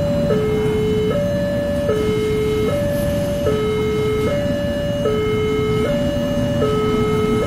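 Railway level-crossing warning alarm sounding an electronic two-tone signal, alternating high and low with each tone lasting a little under a second. Under it is the steady low rumble of an approaching GE diesel-electric locomotive.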